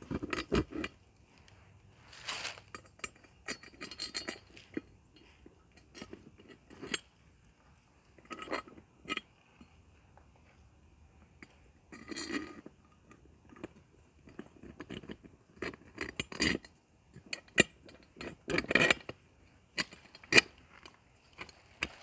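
Metal wheel-mount brackets and bolts being fitted by hand against a boat's transom: scattered clinks, knocks and scrapes with short quiet gaps between them.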